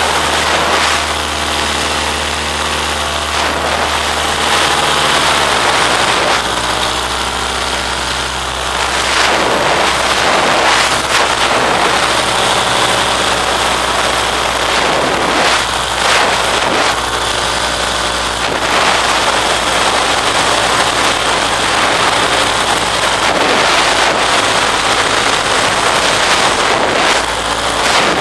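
Engine of a small aircraft running steadily in flight, with wind rushing over the microphone; the engine note shifts about five to six seconds in.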